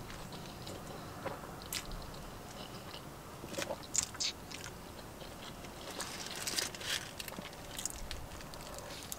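Close-miked mouth sounds of a person chewing a burger: small wet clicks and smacks with a few sharper crackles, and another bite taken near the end.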